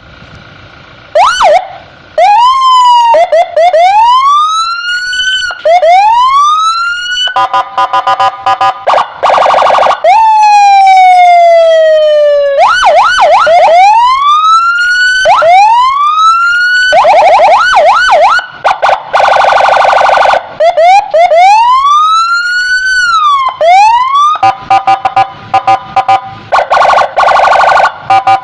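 Electronic police escort siren cycling through its tones: rising wail sweeps, quick yelping chirps, a long falling sweep about ten seconds in, and stretches of fast warbling pulses. It starts loud about a second in.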